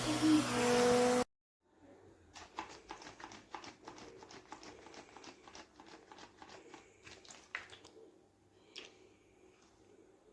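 Voice and hiss that cut off abruptly about a second in, followed by quiet, irregular clicking and light rustling, as of a small object being handled.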